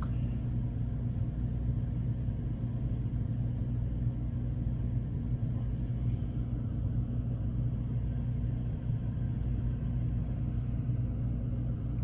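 Dometic 13.5K BTU rooftop air conditioner running, a steady low hum that does not change.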